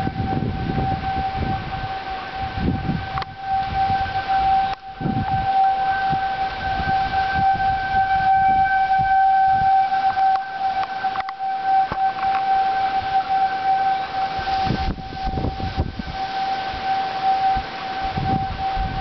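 Outdoor tornado warning sirens sounding a steady alert: one held, unwavering tone that swells and fades a little as it goes, with low rumbling noise underneath.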